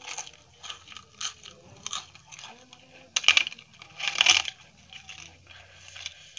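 Crisp papad crackling and snapping as it is broken and crushed by hand into rice and curry, with scattered small cracks and two louder crunching spells a little after three and four seconds in.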